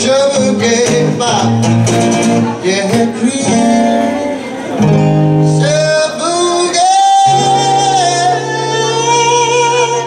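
A man singing into a microphone over a strummed acoustic guitar. About seven seconds in, the strumming stops on one ringing chord while he holds long high notes over it.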